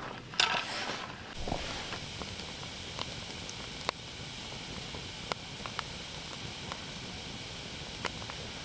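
Wood burning in a camping fire pit: a steady hiss with sharp pops and crackles about once a second. A brief louder noise comes in the first second.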